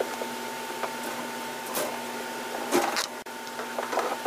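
A few knocks and a scrape as a plastic dust-bath bowl is set down in a wire chinchilla cage, the loudest a little under three seconds in, over a steady hum.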